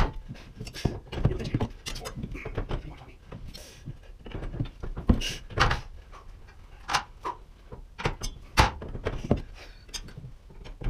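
Garage door torsion spring being wound with two steel mud-mixer paddles used as winding bars: the bars knock and clank in the winding cone as they are set in, turned and swapped, a series of sharp knocks at irregular intervals.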